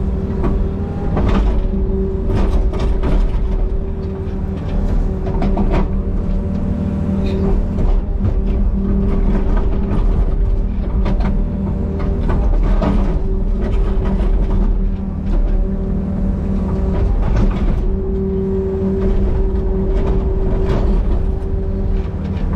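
Small excavator's diesel engine running hard under load with a steady whine that comes and goes, working to push over a big tree, with scattered knocks and cracks throughout.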